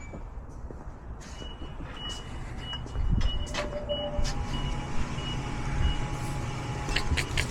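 A motor vehicle running with a low rumble, over a high electronic beep repeating about three times a second that stops a little past the middle. The rumble gets louder about three seconds in.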